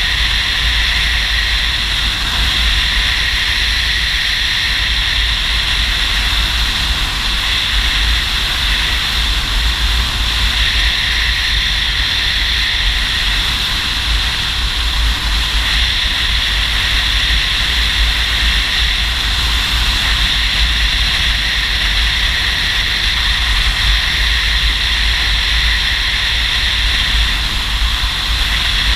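Steady rush of wind and road noise from a touring motorcycle under way at road speed, with heavy low wind buffeting on the microphone.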